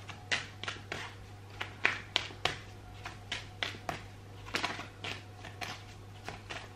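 Tarot cards being shuffled by hand: a run of short, irregular card slaps and clicks, a few each second, over a low steady hum.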